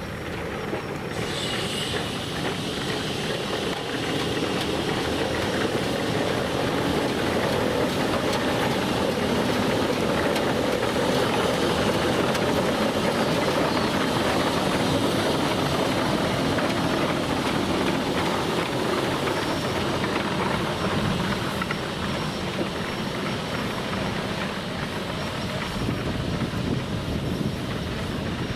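Geared steam locomotives working along the track, a continuous rumble of exhaust with steam hiss. It grows louder over the first several seconds and eases off near the end.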